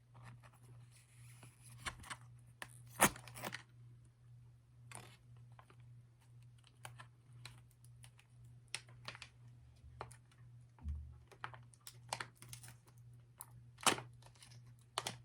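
A snack packet being torn open and handled, with scattered crinkles and crackles and two sharper rips, about three seconds in and near the end, over a low steady hum.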